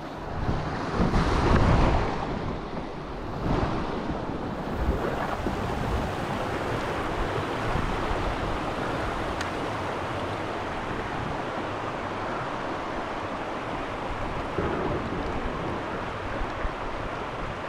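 Rushing river water over shoals, a steady hiss, with wind buffeting the microphone in louder gusts during the first few seconds.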